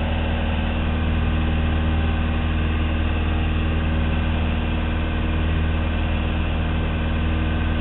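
Piper Cherokee's piston engine and propeller running steadily at low power, an even drone with a strong low hum.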